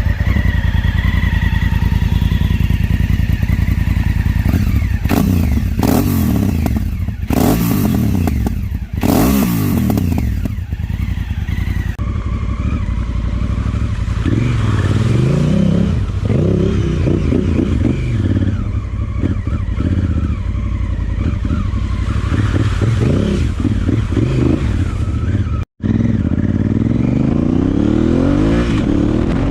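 Honda Africa Twin CRF1000L's parallel-twin engine through an Arrow slip-on exhaust with the baffle removed, running loud. It idles with several quick throttle blips in the first part, then the engine note repeatedly rises and falls as it revs up and down.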